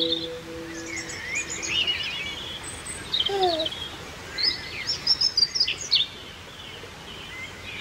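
Songbirds chirping and singing, with a quick run of loud chirps from about four and a half to six seconds in. A held musical chord fades out during the first second or two.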